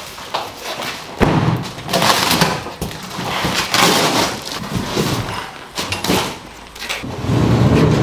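Cardboard box being handled and torn open: rustling, scraping and ripping of cardboard in irregular bursts, with heavy thuds as the boxed drawer unit is set down and moved.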